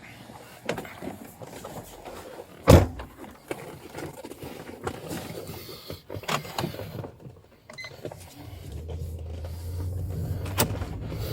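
Rustles and knocks of someone moving about by a vehicle, with one loud sharp thump about three seconds in, then a steady low vehicle hum setting in near the end.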